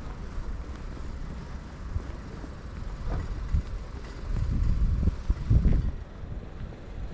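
Wind buffeting the microphone: a low, uneven rumble that gusts louder around the middle.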